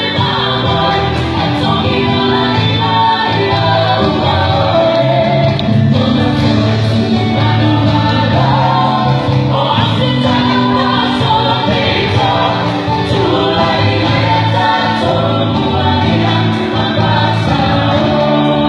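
Dance music with a group of voices singing together over a steady accompaniment, playing without a break.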